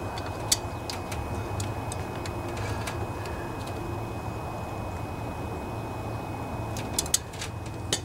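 Channel-lock pliers clicking on the engine's oil drain valve fitting as it is worked tighter: a scattering of short light clicks, several in the first three seconds and a few more near the end, over a steady low rumble.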